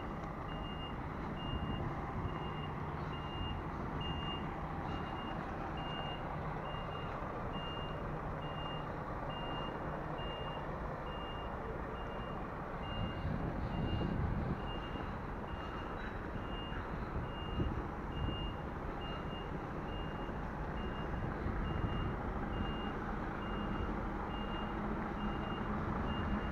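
A vehicle's reversing alarm beeping steadily, about three beeps every two seconds, over a low engine rumble that swells briefly about halfway through.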